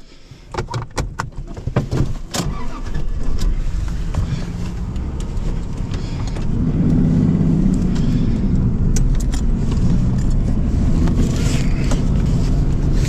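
Pickup truck engine running in the cab, getting louder from about six seconds in as the truck pulls away. Before that, a scatter of clicks and rattles from things being handled in the cab.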